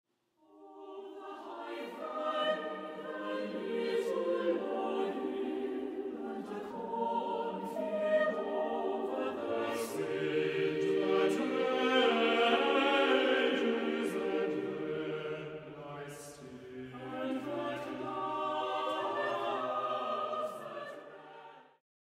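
Choral intro music, voices holding long sustained chords, fading in at the start and fading out just before the end.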